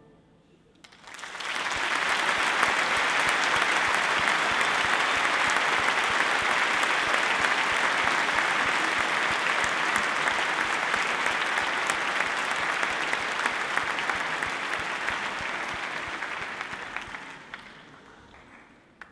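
Concert audience applauding: the clapping breaks out about a second in, holds steady, then dies away near the end.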